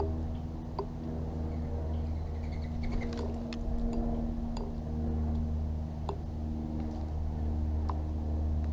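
A steady low motor hum with several pitched tones, swelling and easing. About four sharp clicks sound over it.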